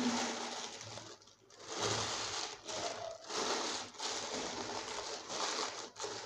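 Butter paper rustling and crinkling in a run of short bursts as hands fold and press it over a chicken.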